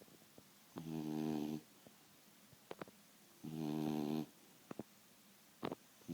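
Beagle snoring: two buzzing, pitched snores about two and a half seconds apart, each under a second long, with faint clicks in between.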